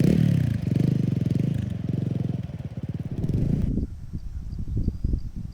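Motorcycle engine running close by, its pitch dropping briefly at the start and then holding steady with a rapid, even exhaust beat. About four seconds in it turns quieter and rougher, into uneven low thuds.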